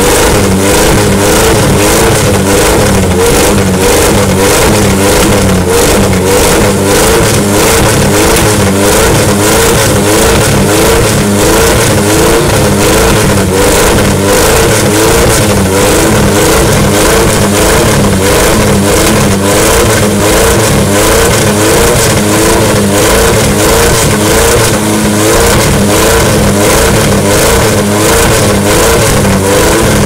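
An engine running steadily at an even speed, with a fast, regular wobble in its tone.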